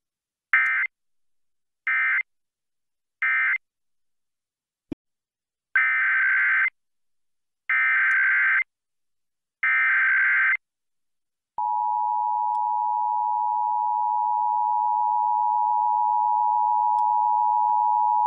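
Emergency Alert System signalling: three short data bursts about a second apart (the end-of-message code of the alert just read), a brief click, then three longer data bursts (the header of the next alert). About two-thirds of the way in, the steady two-tone EAS attention signal starts and holds.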